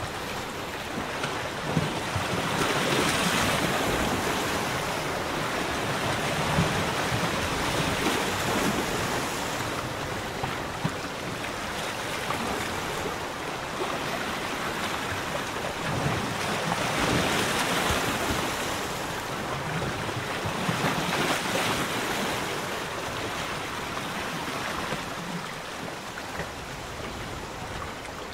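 Small lagoon waves lapping and washing, the wash swelling and easing every few seconds, with wind blowing across the microphone.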